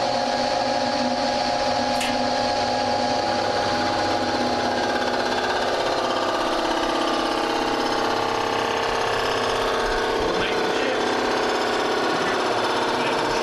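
Rottler CNC surfacing machine's cutter spindle running steadily with a whine of several tones, making a programmed pass across an engine cylinder head.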